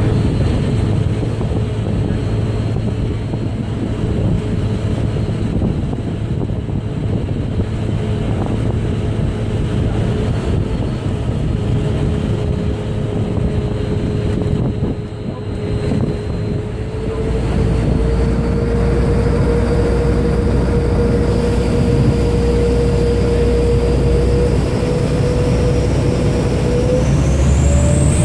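Vaporetto waterbus engine running under way: a steady drone with a low rumble and a whine whose pitch rises a little past the middle and again near the end as the engine speeds up.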